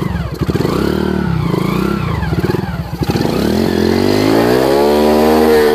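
Motocross motorcycle engine revving up and down several times under load in mud, then, after a brief dip about three seconds in, climbing steadily to high revs and holding there.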